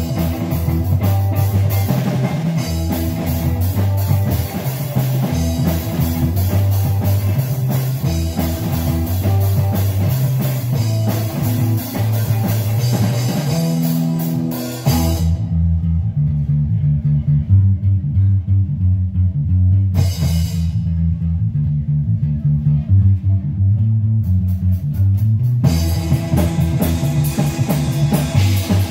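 Live rock band playing instrumentally on electric guitars, bass guitar and drum kit. About halfway through, everything but the bass guitar drops out for about ten seconds, broken by one brief crash; the full band comes back in near the end.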